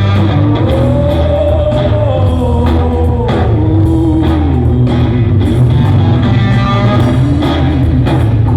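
Rock band playing live and loud, with drums, bass and electric guitar. A sustained melody line on top slides slowly down in pitch.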